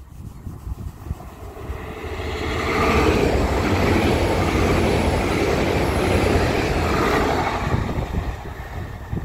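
Hitachi Class 800-series Intercity Express Train passing at speed on its underfloor diesel engines, a rush of wheels and engines. It builds, is loudest from about three to seven seconds in, then fades away.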